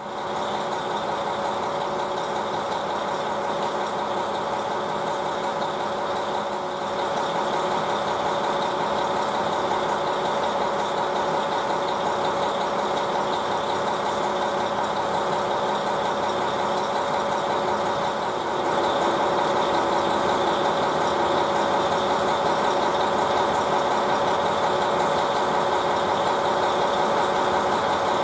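JNR-built KiHa 40 diesel railcar's engine idling steadily while standing at a platform, with a slight rise in level about two-thirds of the way through.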